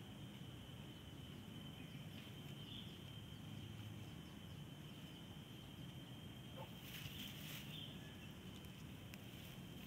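Faint steady high-pitched trill of insects in the grass, holding one tone throughout over a low outdoor rumble. About seven seconds in comes a brief rustle of grass.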